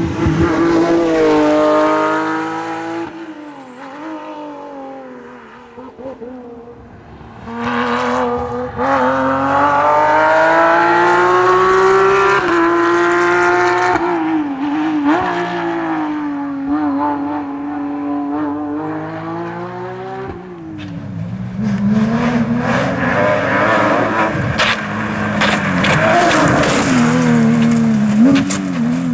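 Porsche 911 rally car's flat-six engine revving hard on a stage. Its pitch climbs through the gears and drops sharply on lifts and shifts, and it fades away and comes back as cars go by. Near the end the engine is joined by a rough spell of sharp cracks and pops.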